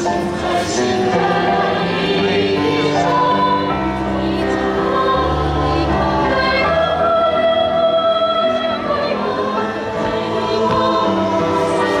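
A choir singing in several parts, holding sustained chords.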